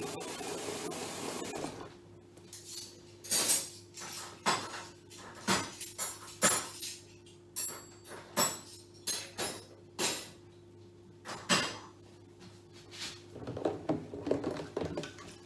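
Dishes and cutlery clinking and knocking during washing up, about a dozen separate sharp knocks spread through, over a steady low hum.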